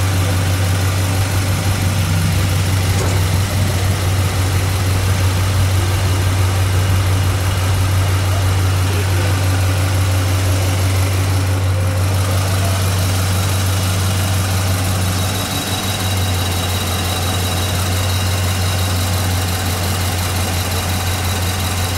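Engine idling steadily, a constant deep hum that dips slightly for a moment about two-thirds of the way through.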